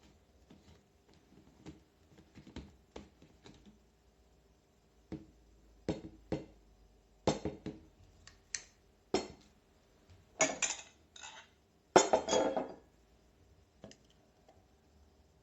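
Hard objects handled, knocking and clinking: scattered light clicks, then sharper knocks, with the loudest clinks about ten and twelve seconds in. No motor is heard running.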